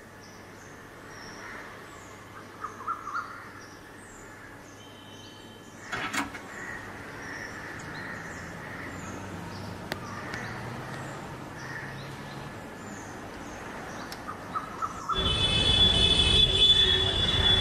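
Birds chirping faintly over quiet room ambience, with one sharp knock about six seconds in. About fifteen seconds in it cuts to loud, busy street traffic noise.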